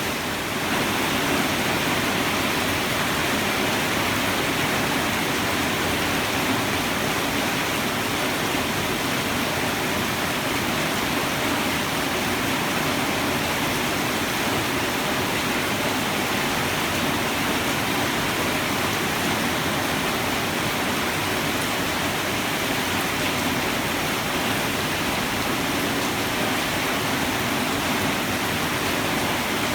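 Heavy rain pouring down steadily, an even, dense hiss of downpour without thunder.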